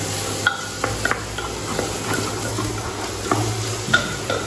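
A spatula stirring and scraping onion-tomato masala around a metal pot as it sizzles and fries, with short scrapes and knocks against the pot once or twice a second.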